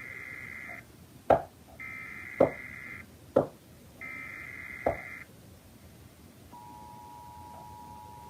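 Emergency Alert System SAME header: three bursts of data tones, each about a second long, with sharp clicks between them. About six and a half seconds in, the steady two-tone EAS attention signal (853 and 960 Hz) starts, heralding a severe thunderstorm warning.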